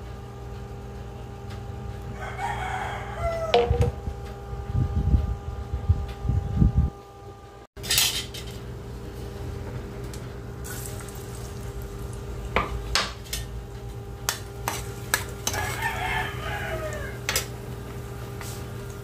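A rooster crows twice, about two seconds in and again near the end, over a steady hum. Scattered clinks of a metal pan and utensils.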